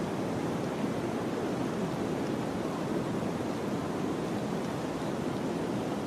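Blizzard wind blowing through a forest: a steady, even rushing noise with no breaks or gusts standing out.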